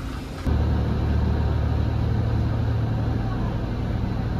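A steady low engine drone, as of a vehicle running, which starts abruptly about half a second in.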